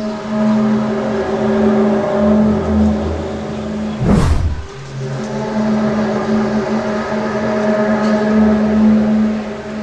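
A loud, low, steady horn-like drone with overtones, the kind of sound that witnesses likened to a giant trumpet in the sky and whose origin is unexplained. A brief loud rushing sound swells and passes about four seconds in.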